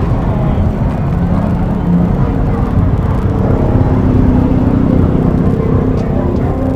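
Steady low rumble of motorcycles running close by, with a faint steady hum joining in about halfway through.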